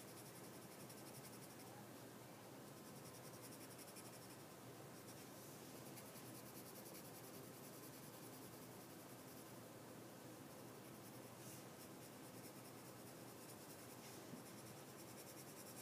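Faint scratching of a graphite pencil shading on drawing paper, laying in a dark value.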